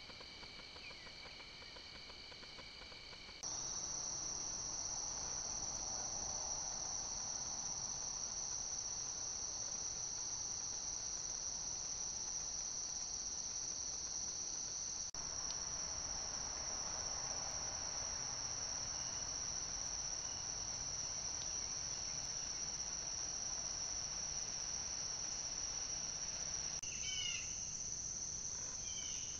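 Steady, high-pitched insect chorus of crickets and similar singing insects, a continuous trill that shifts abruptly in pitch and loudness about three seconds in. A few short bird chirps come through near the end.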